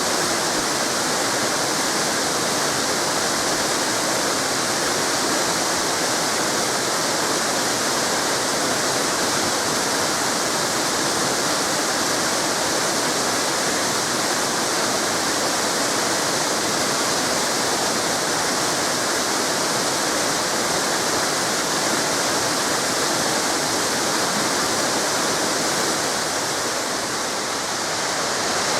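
Small river cascades: water falling and splashing in a steady, dense rush that eases slightly just before the end.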